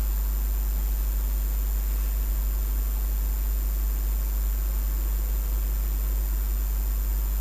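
Steady low electrical hum with an even hiss and a faint high whine, unchanging throughout: background noise of the recording setup.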